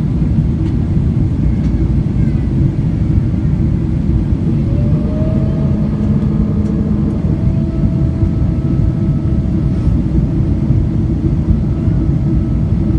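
Boeing 777-200ER airliner noise heard from inside the cabin: a loud, steady low rumble of engines and airflow. About four and a half seconds in, a whining tone rises briefly and then holds steady.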